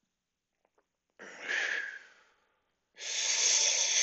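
A man breathing deeply and audibly: a short breath a little over a second in, then a longer, louder one from about three seconds in.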